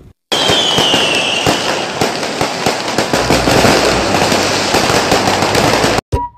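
Aerial fireworks display going off: a dense, continuous run of crackles and bangs, with a high whistle sliding down in the first second or so. It cuts off suddenly near the end.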